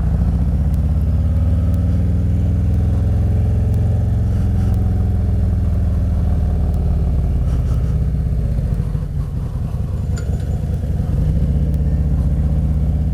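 Harley-Davidson motorcycle's V-twin engine running under way, a steady low rumble that eases off briefly about nine seconds in and then picks back up.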